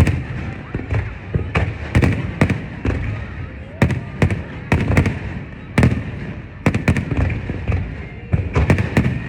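Fireworks display: many sharp bangs of aerial shells bursting, some coming in quick clusters.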